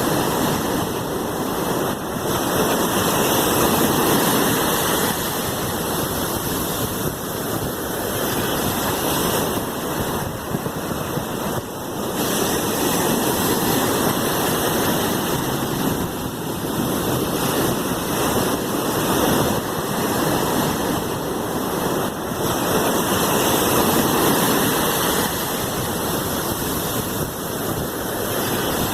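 Sea waves washing in a steady, continuous rush of water, swelling and easing gently every several seconds.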